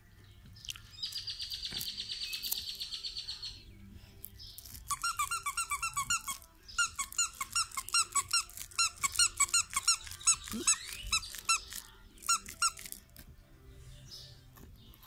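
Plush squeaky dog toy squeezed over and over: a fast, high squeaking for a couple of seconds, then runs of short, evenly spaced squeaks, about three or four a second.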